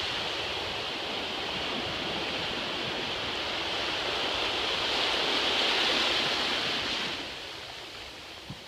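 Small waves washing up over the sand in the shallows, a steady foamy hiss that swells about five to six seconds in and eases off near the end.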